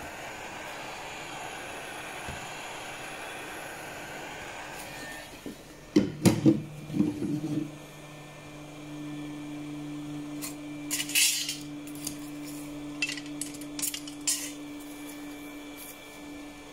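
Small metal repair tools clinking and knocking on a workbench: a quick run of loud knocks about six seconds in, then scattered light clicks. Before them a steady rushing noise runs for about five seconds, and after them a steady low hum.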